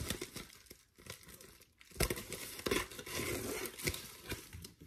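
Subscription-box packaging crinkling and tearing as it is opened by hand, in irregular handling noises that pause for about a second and then resume.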